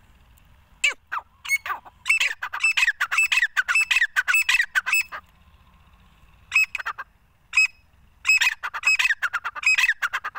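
Grey francolin calling: harsh, rapid notes given in runs. A few notes come about a second in, then a long fast run, a couple of single notes, and another fast run near the end.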